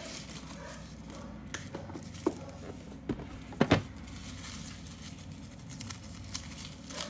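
Small cosmetic package being handled and opened by hand: a few light clicks and a louder double tap about halfway through, over a low steady room hum.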